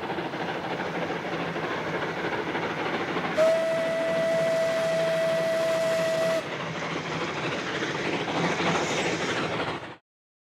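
Steam locomotive running steadily, with one long, steady steam-whistle blast of about three seconds in the middle. The sound cuts off abruptly near the end.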